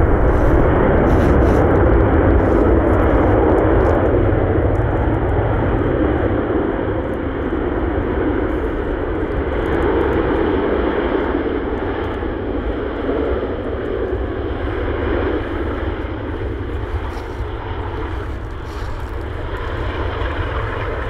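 Airbus A380's four jet engines running at high power during the landing roll-out on a wet runway, most likely in reverse thrust to brake hard: a loud, steady rush that gradually dies down through the second half as the plane slows.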